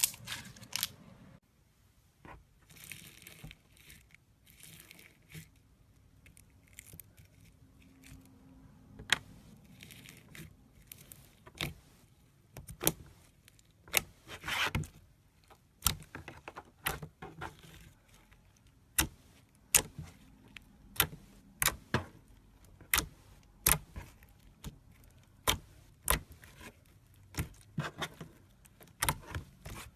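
Slime being pressed and worked by hand, giving sharp clicking pops at uneven intervals, roughly one a second, with a few short noisy squishes between.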